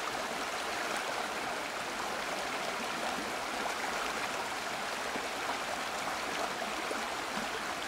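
Creek water rushing and splashing steadily over a shallow stony bed.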